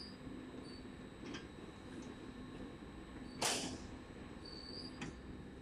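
Galvanized-steel slat conveyor running with a faint low hum, with a few short high-pitched chirps. A brief hissing burst comes about three and a half seconds in.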